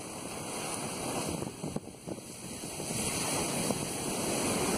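Ocean surf breaking and washing up a sandy beach, with wind on the microphone. The wash dips about two seconds in, then builds again as a wave runs up the sand.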